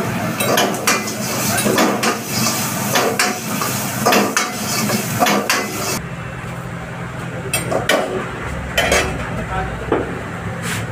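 A steel ladle scraping and clanking against a wok during a stir-fry, with irregular strikes about every half second over a frying sizzle. The hiss drops away suddenly about halfway through, and the strikes then come more sparsely.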